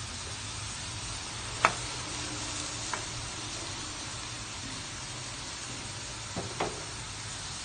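Diced tomatoes, onion, garlic and ginger sautéing over medium heat in a stainless steel pan, a steady sizzle. A wooden spatula knocks against the pan four times; the loudest knock comes a little under two seconds in, and the last two come close together near the end.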